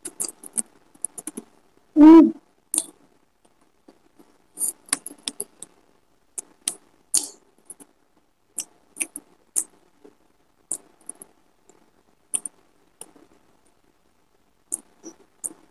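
Close-up mouth sounds of someone eating fish and rice: scattered short wet smacks and clicks of chewing and lip-smacking, a few every second. About two seconds in there is a brief voiced hum.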